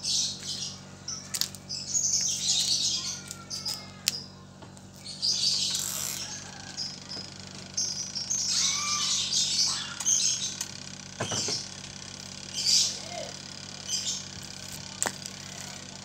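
Small birds chirping in repeated high, twittering bursts, with a few sharp clicks and knocks in between.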